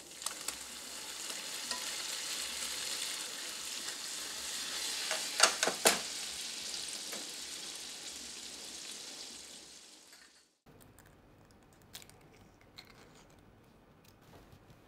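Pasta cooking water hitting hot olive oil with garlic and bacon in a frying pan: a steady sizzle and bubbling that slowly eases once the heat is off, with two or three sharp clicks about halfway. It cuts off about two-thirds through, leaving only faint small clicks.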